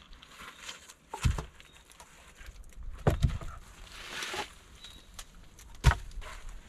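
A few sharp knocks of wood on wood as logs are handled and set down, with rustling in dry leaves and twigs between them.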